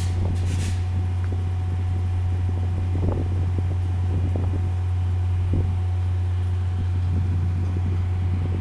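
Steady low hum and rumble of a VIA passenger train standing at the platform, its diesel locomotive and car ventilation running, with wind buffeting the microphone and a few faint knocks.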